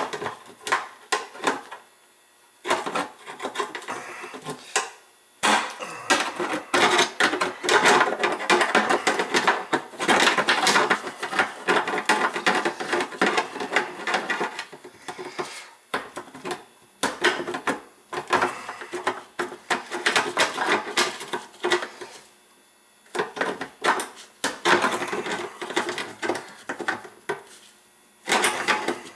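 Metal hand tool scraping and scratching at a stainless steel sink deck around a faucet mounting hole, in repeated runs of rapid scraping with short pauses between them.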